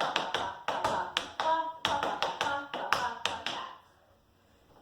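Tap shoes striking the floor in a quick run of time steps, sharp metal taps in a syncopated rhythm that stops about three-quarters of the way through.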